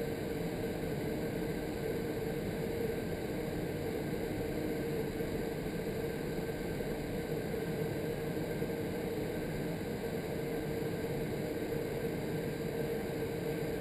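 Vertical wind tunnel's airflow rushing steadily through the flight chamber of an indoor skydiving tunnel, with a steady mid-pitched hum running under it.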